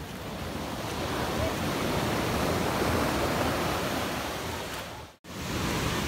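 Sea surf washing onto a pebble shore: the rush of a wave swells and then falls away, breaking off abruptly for a moment near the end.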